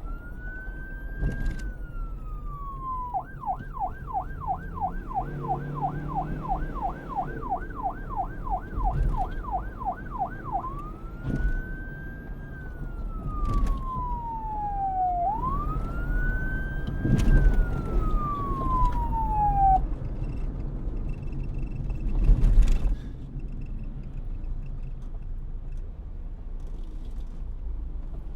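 Police car siren sounding in a slow rising and falling wail, switching to a fast yelp of about three sweeps a second for several seconds, then back to the wail. About 20 seconds in the siren cuts off, leaving the steady rumble of the vehicle.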